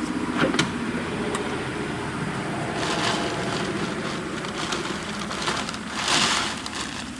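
Pickup truck running, with a few sharp clicks early on and two louder rustling swells, about three and six seconds in.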